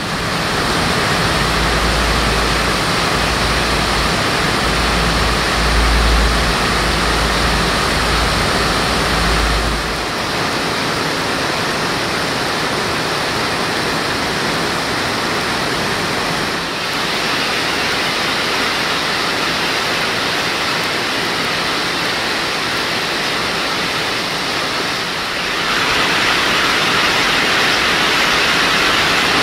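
Torrential rain pouring down, a steady loud hiss, with a low rumble under it for the first ten seconds or so.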